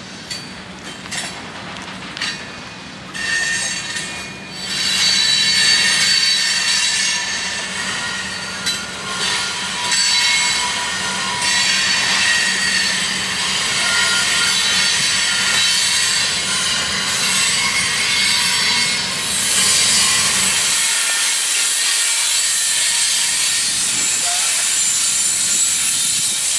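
Freight cars rolling past on steel rails, their wheels squealing in thin high-pitched tones, with a few sharp clicks at first. Toward the end a steady rushing hiss of rolling wheels takes over.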